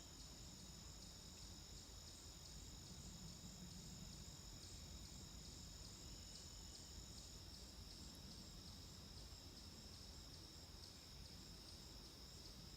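Faint, steady chirring of crickets, a continuous high-pitched trill, over low background noise.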